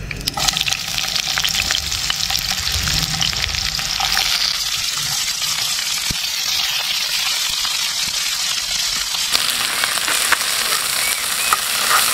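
Food frying in hot oil in a pan on a camping gas stove. A sudden sizzle starts right at the beginning as the first ingredients go into the oil, then settles into a steady crackling sizzle, with a few sharp clicks near the end.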